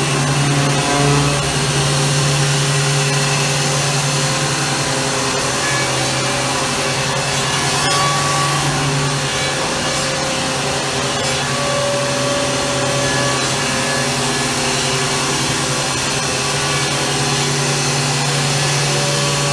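Reichenbacher Artis X6 CNC machining center running: a loud, steady mechanical hiss with a low hum that fades for several seconds midway and comes back near the end.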